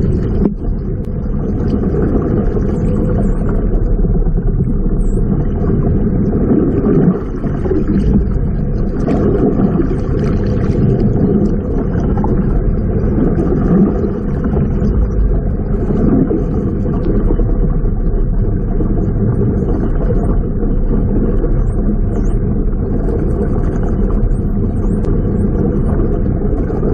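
Steady, muffled underwater rumble of water noise picked up by a camera in an underwater housing, with a few faint high chirps over it.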